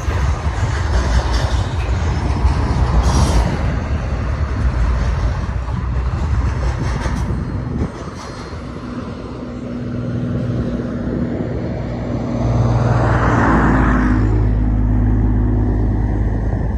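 Double-stack intermodal well cars of a BNSF freight train rolling past on jointed steel wheels as the train gets under way, a steady rumble and wheel-on-rail rush that drops off about eight seconds in as the last car clears. After that a steady low hum remains, with a brief rushing swell a few seconds before the end.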